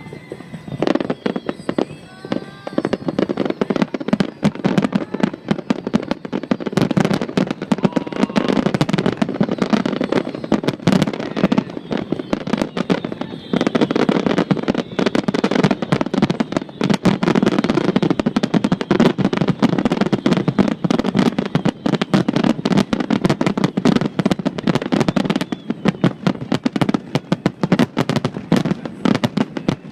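Fireworks bursting in a dense, rapid barrage of bangs and crackling pops, many shots overlapping with hardly a gap.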